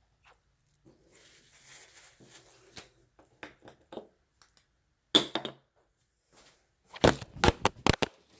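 Scattered light knocks and rustling from handling, a single sharp knock about five seconds in, then a quick clatter of several loud hard knocks near the end as the phone filming falls and bounces.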